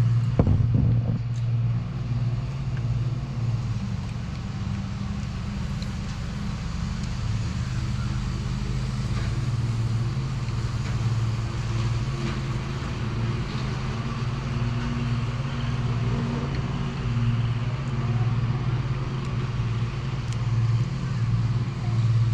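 Car engine idling: a steady low hum.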